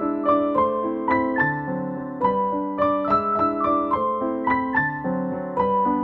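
Piano background music: a flowing melody of single notes struck a few times a second over sustained lower notes.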